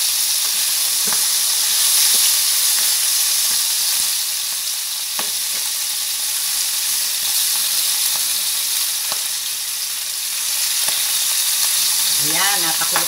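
Pieces of chicken adobo sizzling in oil in a frying pan, a steady high hiss. They were first simmered in their marinade and are now being browned. A few sharp clicks of metal tongs against the pan come as the pieces are turned.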